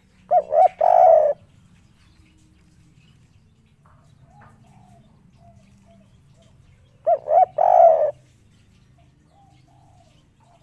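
Spotted dove cooing its three-note 'kuk 3' call twice, about seven seconds apart: each phrase is two short notes followed by a longer one.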